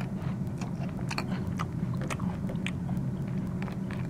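Crunchy chewing sound effect: someone biting and munching a crunchy snack like a Cheeto, a quick, irregular run of crisp crunches over a low steady hum.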